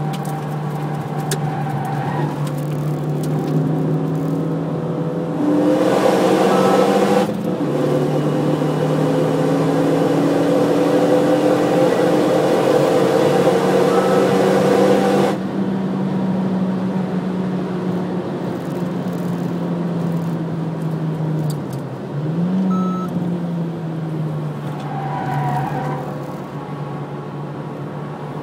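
Renault Mégane RS250's turbocharged 2.0-litre four-cylinder engine, heard from inside the cabin on track: revs climb and drop sharply at an upshift about seven seconds in, then a long hard pull with rising pitch and wind and road noise that cuts off suddenly about halfway through as the throttle closes. The engine then runs lighter, with a quick dip and jump in revs a few seconds later.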